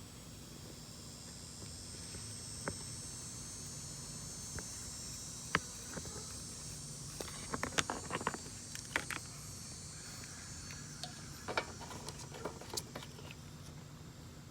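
Insects chirring steadily in the background, fading out about ten seconds in, with scattered light clicks and taps of the oil bottle and dipstick being handled while oil is topped up in a lawnmower engine.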